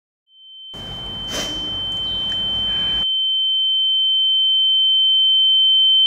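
A single steady high-pitched electronic ringing tone fades in just after the start and swells steadily louder. For the first couple of seconds faint background hiss sits under it, with one soft knock, then cuts off suddenly, leaving the tone alone.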